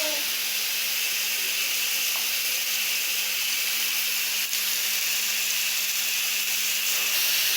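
Onion and tomato frying in a pan: a steady sizzle, with a faint steady hum underneath.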